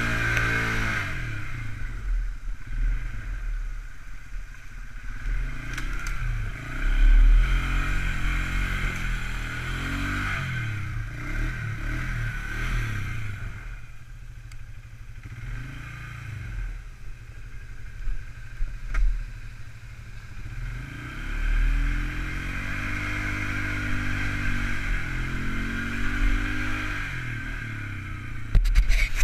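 Polaris 335 ATV's single-cylinder four-stroke engine running under way, its pitch rising and falling as the throttle is opened and eased off. There are occasional louder knocks and rattles as the quad rides over rough ground.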